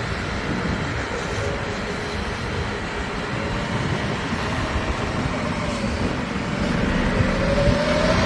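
Wind buffeting the microphone over a steady drone of airport ramp machinery. A faint tone rises slightly in the last few seconds.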